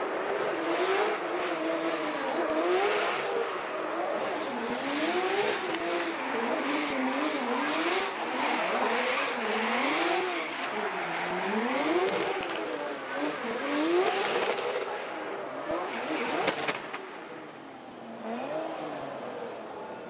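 Competition drift cars sliding at full throttle: engine pitch climbs and falls over and over as the throttle is worked, over a continuous hiss and screech of spinning, smoking tyres. The sound drops off somewhat near the end.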